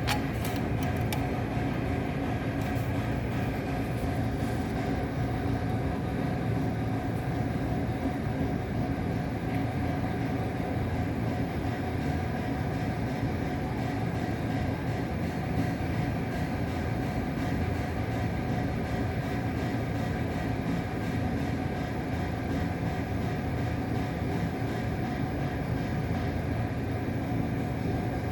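A steady low mechanical rumble with a constant hum, unchanging throughout, with a few faint clicks about a second in.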